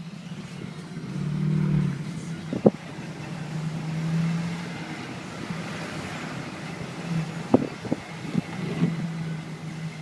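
Motor vehicle running while driving, heard from inside: a steady low engine hum over road noise, with a few short knocks about 3 s and 8 s in.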